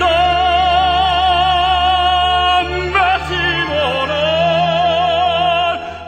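Background music: a slow melody of long notes held with vibrato, two of them in turn with a short break between, over a sustained low accompaniment.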